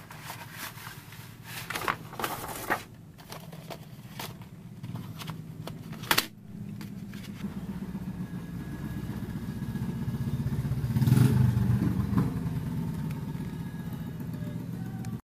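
Clicks and rustles of plastic paint tubes and their tray being handled. About six seconds in, a low motor-vehicle engine drone starts, swells to its loudest past the middle and eases off again, as a vehicle passing by does.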